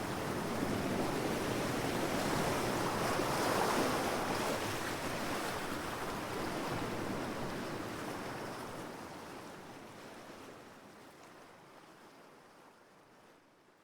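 Ocean waves breaking on shore, a steady rush of surf that swells once about four seconds in and then fades out gradually to near silence.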